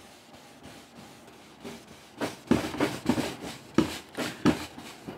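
A cloth rag wet with finish restorer rubbing over a varnished wooden radio cabinet: a run of short wiping strokes, about three a second, starting about a second and a half in and stopping shortly before the end.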